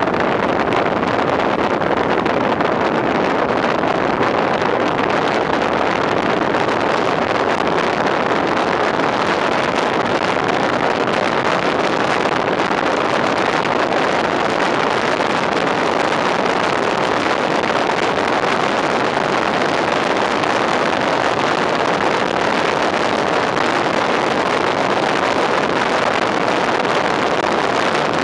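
Steady rush of wind on an outside-mounted microphone and road noise from a fire engine driving at speed, unbroken and without a siren.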